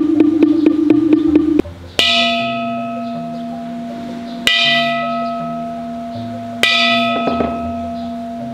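Wooden fish (muyu) knocked rapidly with a mallet, about five hollow knocks a second, stopping about a second and a half in; then a temple bowl bell struck three times, each stroke ringing on and slowly fading.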